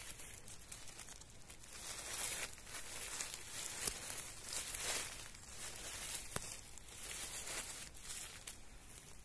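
Dry forest leaf litter rustling and crackling as it is disturbed, in irregular bursts, with two sharp snaps about four and six seconds in.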